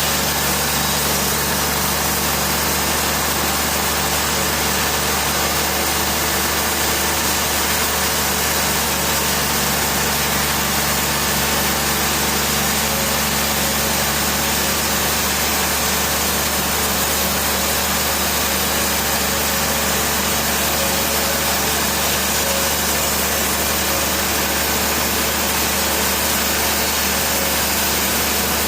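Heavy machinery running steadily: a constant engine-like hum under a dense, even hiss, with no change throughout.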